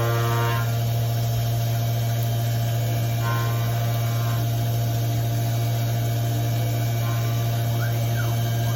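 CNC milling machine running a programmed pocket cut, a steady loud hum with machining whines that come and go: one fading just after the start, another about three seconds in, and a short rising-then-falling whine near the end.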